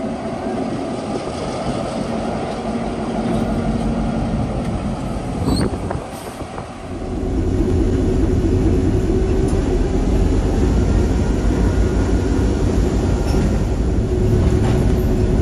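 EMD CF7 diesel-electric locomotive with its 16-cylinder EMD 567 engine running. At first it is heard from trackside. About seven seconds in it becomes louder, a steady low drone heard from inside the cab as the locomotive rolls along the track.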